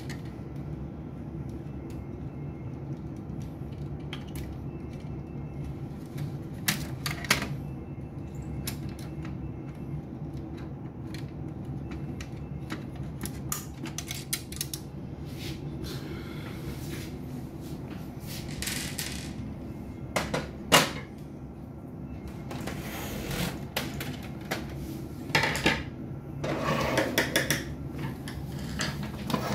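Plastic and metal clicks, knocks and clatter of an HP LaserJet printer's laser scanner unit being worked loose from the printer chassis by hand and set down on a table, sparse at first and busier in the second half. A steady low hum runs underneath.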